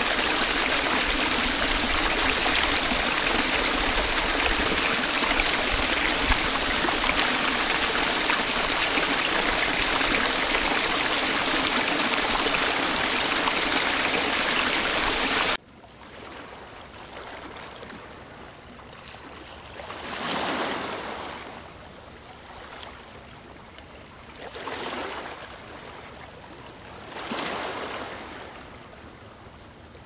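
Waterfall pouring, a loud, steady rush that cuts off suddenly about halfway through. A much quieter water rush follows and swells up three times.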